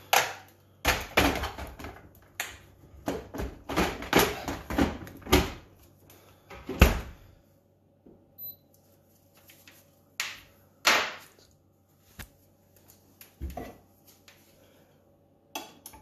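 Plastic ice bucket being pushed back into the freezer door of an American-style fridge freezer and the door shut: a run of knocks, clunks and rattles over the first seven seconds, the loudest near the end of that run. Then a few separate taps and clicks as the dispenser's control panel is pressed.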